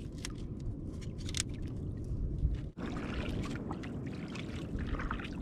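Sea water lapping and sloshing against the hull of a small wooden outrigger boat, with scattered small splashes and drips.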